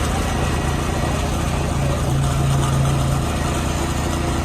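Concrete mixer truck's engine running steadily at a low idle, its low note swelling slightly around the middle.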